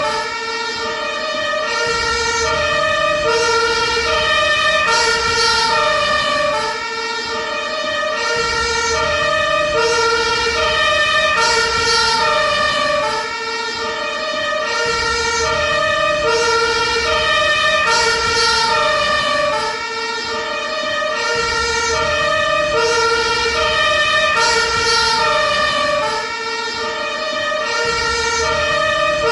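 Ambulance two-tone siren alternating steadily between a high and a low note, switching about every half second. The loudness dips briefly every six to seven seconds.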